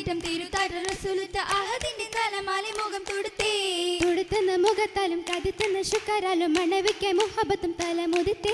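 Mappila oppana song sung by female voices, a held wavering melody, with the dancers' rhythmic hand clapping throughout.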